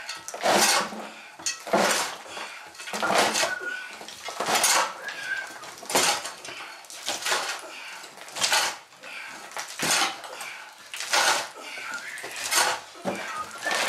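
Short-handled metal shovel scraping and scooping loose soil and rubble off a floor, about a dozen rough strokes roughly one a second.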